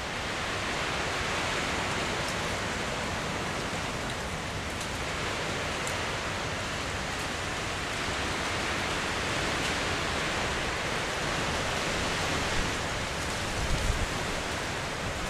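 Steady outdoor rushing noise with no distinct source, like wind or distant surf. A few low bumps come near the end.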